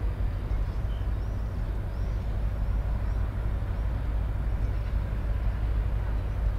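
Deep, steady rumble of the ro-ro ferry Mega Express Three's engines as the ship gets under way.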